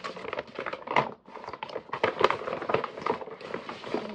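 A paper shopping bag rustling and crinkling in irregular bursts as it is opened by hand and a cardboard gift box is pulled out of it.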